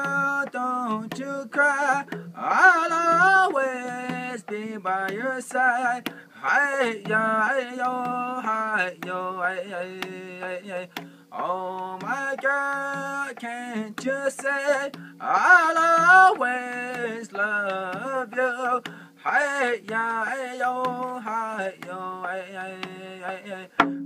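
A man singing in phrases over music with a percussive beat and steady low bass notes.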